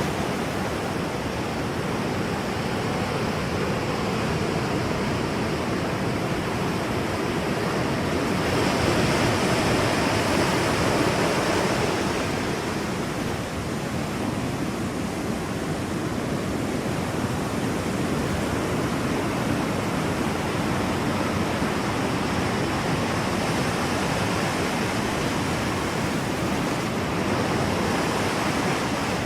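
Ocean waves rolling in and breaking on the shore, a continuous rush of surf that swells and eases, with one bigger wave about 8 to 12 seconds in.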